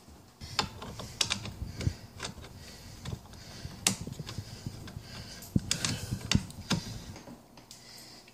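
Irregular clicks, knocks and rattles of metal and plastic parts being handled and fitted while the tubular handle of a Snow Joe electric snow blower is assembled; the sharpest knocks come about 4 s in and again around 6 s.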